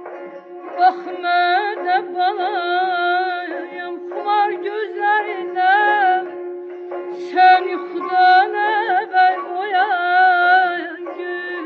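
Azerbaijani kəsmə şikəstə folk song: a wavering, heavily ornamented melody line over a steady held drone note.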